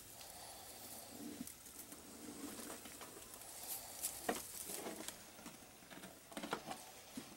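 Faint rustling and scratching as Russian tortoises and a hand move over dry bedding and straw, with a few short sharp taps, the loudest about four seconds and six and a half seconds in.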